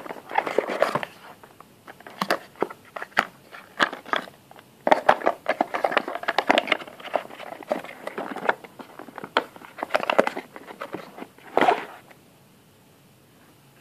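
A cardboard box and its cardboard packaging inserts being handled: irregular rustling, scraping and clicks that stop about twelve seconds in.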